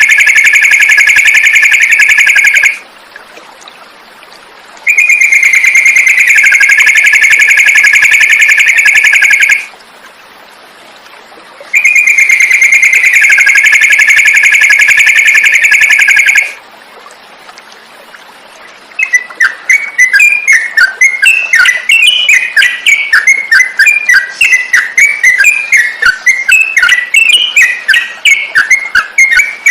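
Songbird singing: three long, loud trills of about five seconds each, each dipping slightly in pitch, with short pauses between. About two-thirds of the way in these give way to a fast run of short, varied chirping notes.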